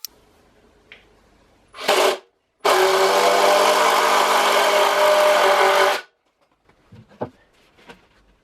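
Electric drill running: a short blip, then a steady run of about three seconds at an even pitch that cuts off suddenly, followed by a few light knocks.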